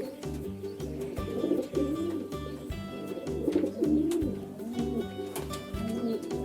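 Pigeon cooing, several low coos in a row, over background music with a steady beat.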